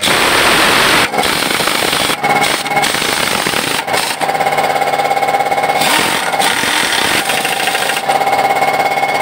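Electric angle grinder running and grinding metal: a steady high whine over a harsh grinding noise, with several brief dips in the first four seconds as the disc comes off the work.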